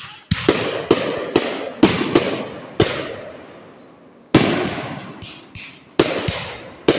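Fireworks show: aerial firework shells bursting in a quick series of sharp bangs, each trailing off in a fading tail, with a lull of about a second and a half midway before a second volley of bangs.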